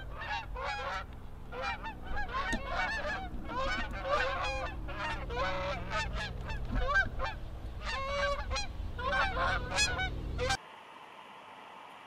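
A flock of geese honking, many calls overlapping several times a second. The sound cuts off suddenly about ten and a half seconds in, leaving a faint steady hiss.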